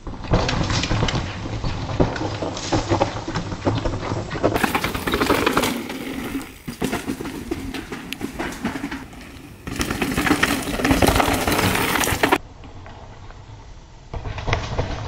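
Mountain bike descending a dry, loose dirt trail: tyres crunching and skidding over dirt and rocks, with a steady run of knocks and rattles from the bike. The sound drops off sharply a little before the end, then comes back loud as the bike nears again.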